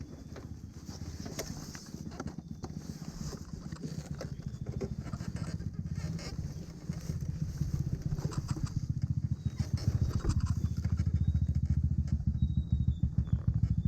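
Small single-cylinder Honda Cub motorcycle engine running at low speed with a steady beat. It grows louder about halfway through and again near the end.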